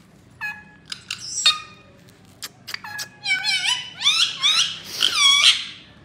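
Indian ringneck parrot squawking: a run of shrill calls that rise and fall in pitch, with a few sharp clicks in the middle. The calls grow louder toward the end.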